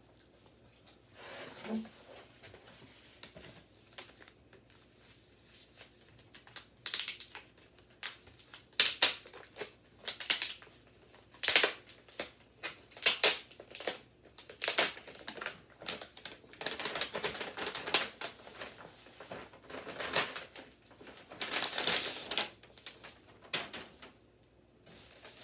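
Packaging handled while unpacking a box: bubble wrap and paper crinkling and rustling in a string of short, loud rustles that start a few seconds in.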